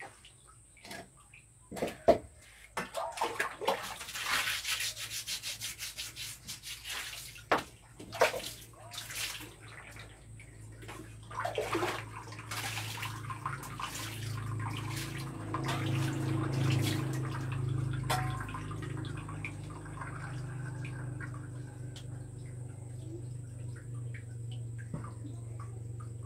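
Water splashing in a small bathing room: irregular sloshes and splashes over roughly the first half, giving way about halfway through to a steadier, continuous rush of running water.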